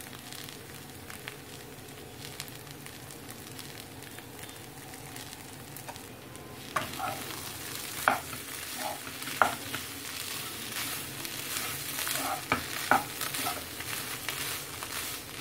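Potato bhaji sizzling gently in a hot nonstick pan. About seven seconds in, a spatula starts stirring it, with repeated scrapes and knocks against the pan over the sizzle.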